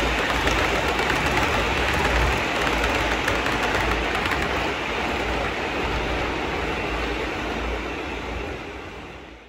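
O gauge model passenger train rolling past over the layout's track, a steady rumbling rolling noise that fades away near the end as the train draws off.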